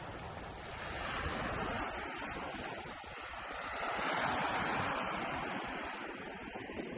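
Gulf of Mexico surf washing onto the beach, a steady rush that swells twice as waves break and run up the shore.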